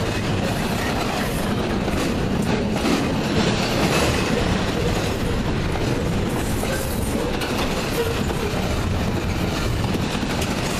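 A double-stack intermodal train's container well cars rolling past, with a steady, even noise of steel wheels running on the rails.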